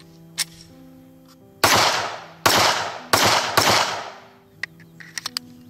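Four shots from a Glock 43 9mm pistol, fired at an uneven pace starting about one and a half seconds in, each trailing off in a short echo.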